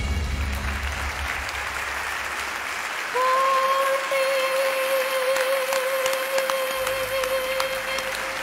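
Audience applauding. About three seconds in, one long steady sung note comes in over the applause and holds until near the end.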